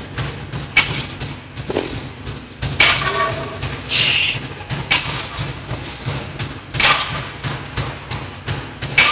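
Irregular dull thuds and bangs, roughly one a second, echoing in a large gym: thudding from someone boxing at the back.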